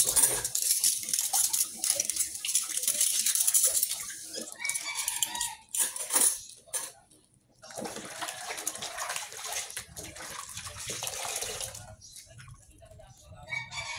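Tap water running into a stainless steel sink and splashing over dishes being rinsed. It breaks off about four seconds in for a few scattered clinks of dishes and cutlery, then water and washing sounds return from about eight to twelve seconds in.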